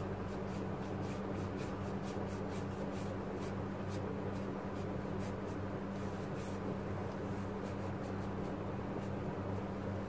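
Flat paintbrush brushing watercolor onto paper in short scratchy strokes, several a second, that stop about two-thirds of the way through. A steady low hum runs underneath.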